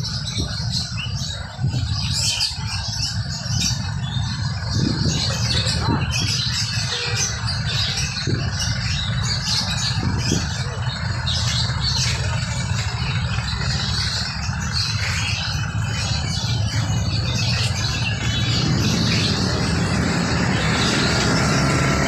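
Many caged songbirds chirping and twittering in short, overlapping calls, over a steady low rumble of street traffic.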